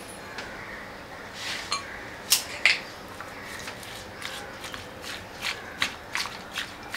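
Raw prawns being mixed with a spoon in a glass bowl with garlic paste and chili flakes: soft wet squishing with sharp clicks of the spoon against the glass. The two loudest clicks come a little over two seconds in, followed by a run of lighter clicks.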